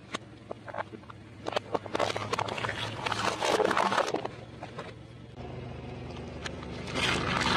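A car tyre rolling over and crushing plastic objects and ice: a run of sharp cracks and crunching, loudest about three to four seconds in and again near the end. A car engine's low hum shows between the crushes.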